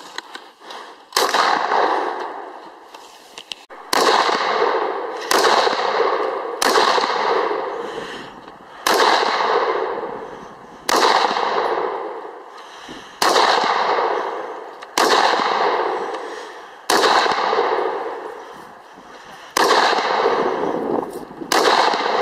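A scoped AR-style rifle fired slow, steady single shots, about eleven in all, roughly one every one and a half to two and a half seconds. Each shot has a sharp crack followed by a long echo that fades away.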